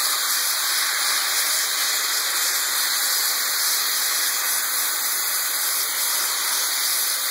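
Beef cubes searing in hot olive oil in a cast-iron pan, giving a steady sizzle as they are stirred with a wooden spoon.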